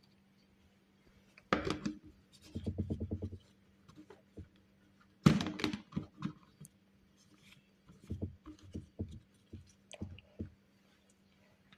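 Knocks and clatter of a kitchen blender's jar and lid being handled and set in place: a sharp knock, a quick rattling run of taps about two and a half seconds in, the loudest knock just after five seconds, then a scatter of smaller knocks. The motor is not running.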